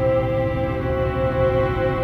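Background music of long, held notes over a low, dense bed of sound, steady throughout.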